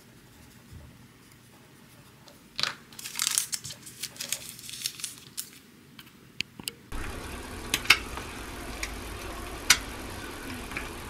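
Pencil scratching faintly on a small paper note, then the paper rustling and crinkling as it is handled and folded. About seven seconds in, two eggs frying in a pan hiss steadily, with a few sharp pops of spitting oil.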